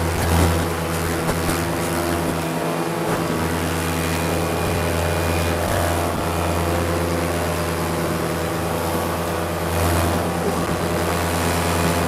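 Paramotor's two-stroke engine and propeller running steadily at high power in flight, a constant low drone with a stack of engine tones.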